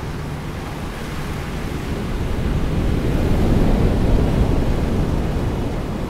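Surf washing up a sandy beach: a wave rolls in, swelling to its loudest about halfway through, then easing off as it runs up the sand.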